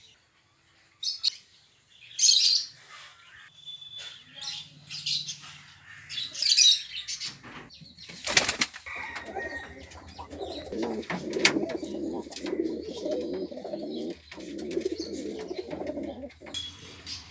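Pet birds: scattered high chirps and squawks for the first several seconds, a sharp burst of wing-flapping about halfway, then a low pulsing sound for about six seconds near the end.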